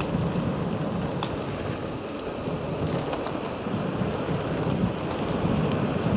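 Wind buffeting the microphone of a phone on an electric scooter ridden at speed: a steady, fluctuating rushing rumble.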